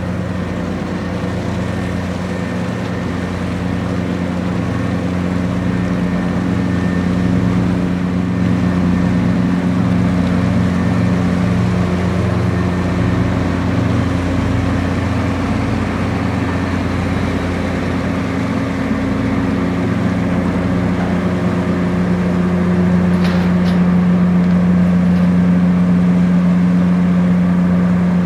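Sightseeing boat's engine running steadily, a deep even hum heard on board, growing a little louder about two-thirds of the way through.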